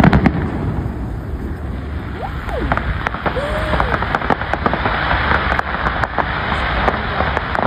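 Aerial fireworks crackling overhead: a dense hiss of rapid small crackles from bursting shells, with scattered sharper pops through it.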